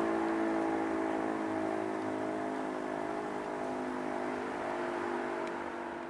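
E57 electromechanical fire siren sounding for the monthly siren test: a steady wail that slowly grows fainter.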